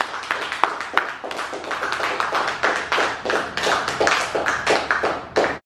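A small audience applauding, with individual claps heard in a dense, irregular patter. It cuts off abruptly near the end.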